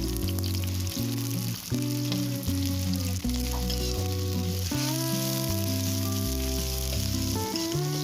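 Food sizzling steadily as it fries in hot oil, under background music with a plodding bass line.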